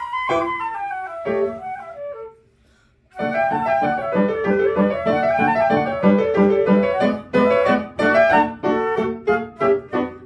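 Concert flute and piano playing a classical piece together. A descending phrase fades into a pause of about a second, then the music resumes with quick repeated piano notes under a moving melody.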